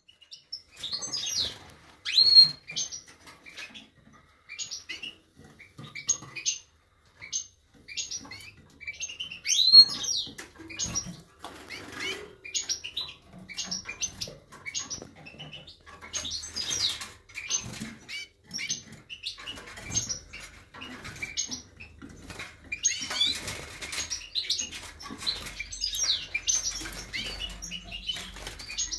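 Young European goldfinch (Carduelis carduelis major), sixteen days old, calling over and over with short, high notes, one to two a second, mixed with bouts of wing flapping in its cage.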